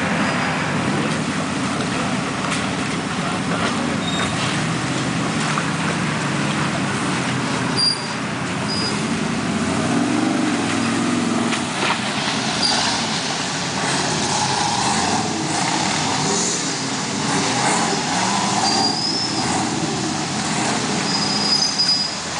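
Off-road rock buggies' engines running and revving as they crawl through a muddy, rocky creek bed, the engine note rising and falling. Brief high squeaks come through now and then in the second half.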